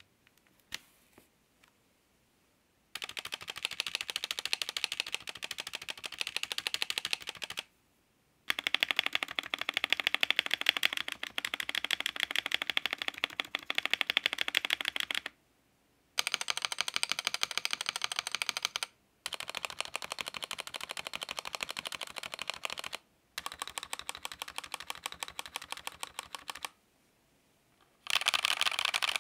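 Redragon K631 PRO SE mechanical keyboard being typed on fast, in long runs of rapid keystrokes broken by short pauses, after a few single key clicks at the start.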